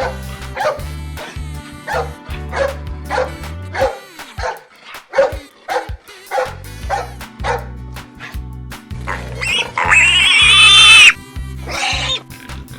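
A dog barking in a quick, steady series, about two barks a second, over background music. It is followed by a loud, drawn-out, high-pitched squealing call and a shorter one after it.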